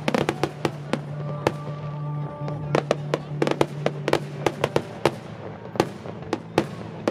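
Fireworks display: aerial shells bursting in quick, irregular succession, many sharp bangs, some in rapid clusters.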